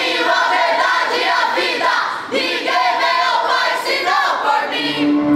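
A group of young voices singing together, loud and overlapping. Near the end a steady held instrumental note comes in under them.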